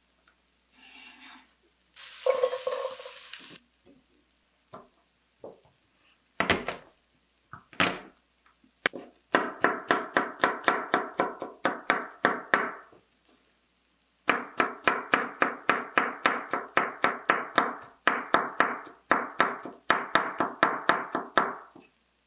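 A utensil beating rapidly in a bowl, as when whisking eggs: ringing clinks about five or six a second, in two long runs with a short pause between. Before them come a brief hissing burst and two knocks.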